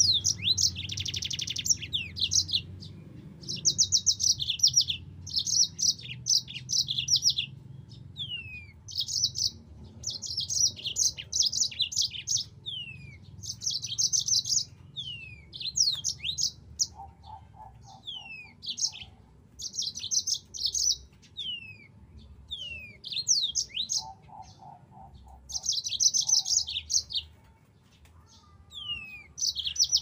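Yellow-fronted canary (Mozambique canary) singing: short bursts of fast, high trills broken by single whistled notes that slide downward, repeated with brief pauses between phrases.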